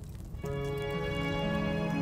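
Slow, sad instrumental music: a new sustained chord swells in about half a second in and holds.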